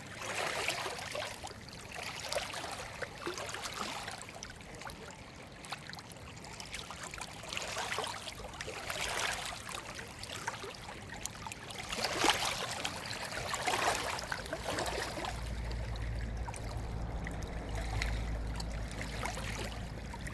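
Running water, a stream or trickle, rising and falling in irregular surges. A low rumble joins in about three-quarters of the way through.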